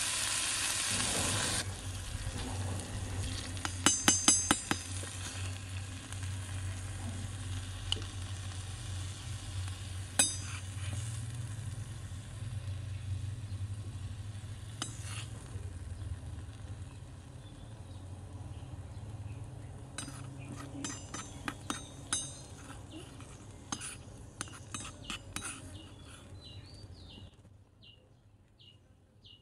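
Meat and chillies sizzling in a miniature wok for about the first two seconds, then the frying sound drops away. After that come scattered clinks and scrapes of a small metal spatula and spoon against the wok and a small plate as the food is dished up, over a low steady hum.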